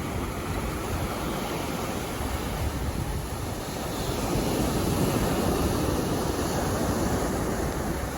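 Sea waves washing onto a beach, a steady rush of surf that swells louder about halfway through and eases off near the end.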